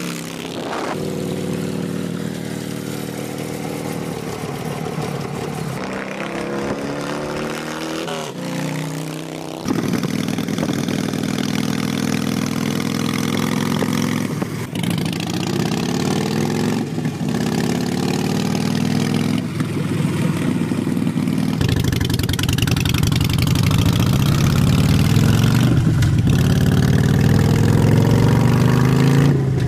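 Harley-Davidson Sportster V-twin engines, an XL 1200, a Nightster 1200 and an Iron 883 with a Vance & Hines exhaust, running and revving as the bikes ride by in turn. The sound jumps louder at a cut about ten seconds in and again about twenty-two seconds in.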